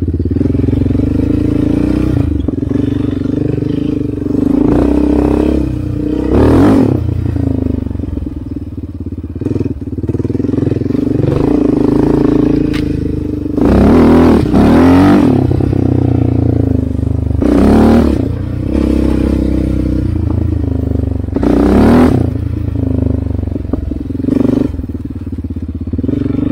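Dirt bike engine heard from on board while riding, revving up and easing off repeatedly, with several sharp bursts of throttle.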